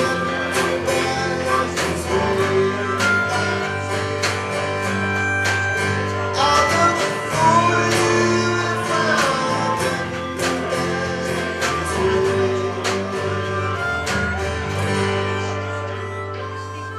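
Live acoustic folk-country music: strummed and picked acoustic guitars with a singing voice, the playing growing quieter near the end.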